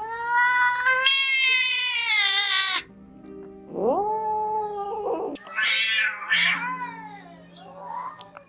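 A domestic cat meowing: one long, drawn-out meow lasting nearly three seconds, a shorter meow about a second later, then a few short, higher-pitched calls toward the end. Faint steady low tones sit underneath.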